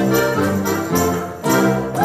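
An ensemble of button accordions playing a tune together, full chords over bass notes with a steady beat.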